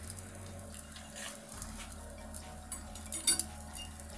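Metal grilling skewers of kinmedai fillet clicking lightly against the grill rack as they are handled, over the faint crackle of the fish cooking on charcoal, with one sharper click about three seconds in. A steady low hum runs underneath.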